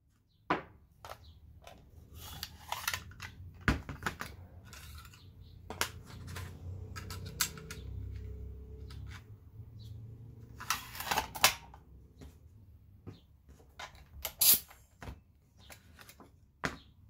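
Clicks and metallic clatter of an Einhell pneumatic nailer-stapler being handled: the magazine is opened, a strip of 25 mm brad nails is loaded in and the magazine is snapped shut, and the air hose is coupled back on near the end. Sharp clicks are scattered throughout. The two loudest snaps come a little after the middle and about three seconds later.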